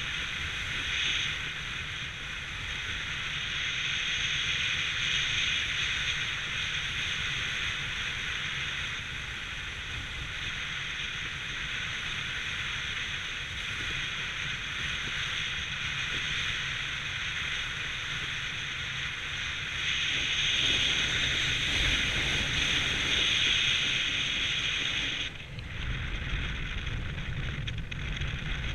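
Steady rush of wind over the microphone during descent under a gliding ram-air parachute. About 25 seconds in, the hiss abruptly turns duller and more rumbling.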